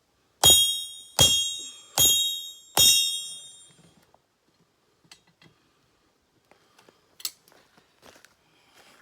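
Four hammer blows on steel at an anvil, roughly one every 0.8 s, each ringing with a bright metallic tone that fades away. A single light metal clink follows a few seconds later.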